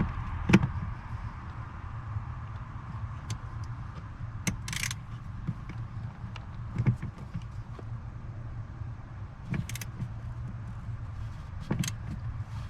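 Scattered clicks and metal knocks of a wrench or socket working a stubborn, rusted ground bolt loose, with two short rasping bursts, over a low steady hum.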